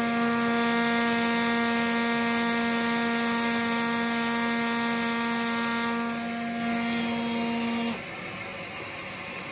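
Pneumatic air scribe buzzing at a steady pitch as its stylus chips rock matrix away from around an ammonite. It stops about eight seconds in.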